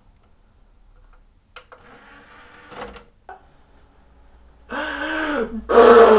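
A DVD player tray slides shut with a short mechanical whir and a click. From about three-quarters of the way in, a man wails and sobs loudly in exaggerated crying, and this grows louder near the end.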